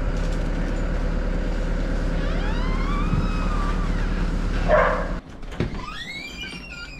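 A steady low machine hum from a cattle barn comes through an open door, with a high rising-and-falling call about halfway through. It cuts off suddenly when the door is shut, about five seconds in.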